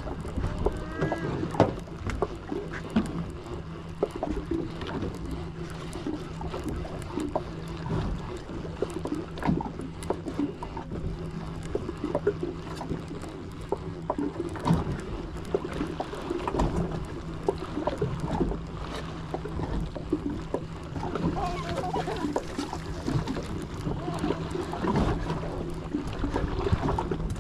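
Fishing boat's engine running with a steady low hum while drifting, under a wash of water, with scattered knocks and clicks from gear on board.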